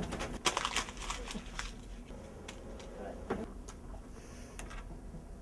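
Papers and manila folders being handled at an office desk: a quick run of rustles and clicks in the first second and a half, then scattered soft taps.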